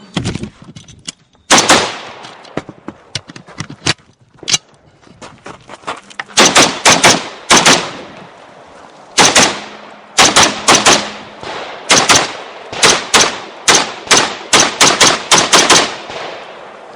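AR-15 rifle firing: one shot about a second and a half in, then fast strings of shots in quick succession, often in pairs, from about six seconds on.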